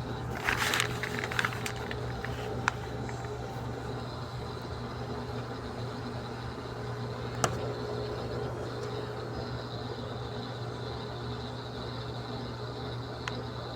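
Daewoo washing machine running steadily at the start of its rinse stage, a low hum with a few sharp clicks.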